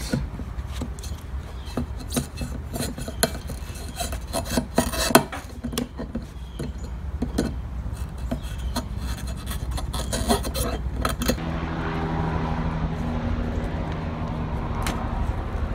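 Pliers clicking and scraping against a metal hose clamp and fuel pump bracket while the feed hose is worked off an in-tank fuel pump, in short irregular clicks and rasps. About two-thirds of the way through a steady low hum starts and runs on under the handling.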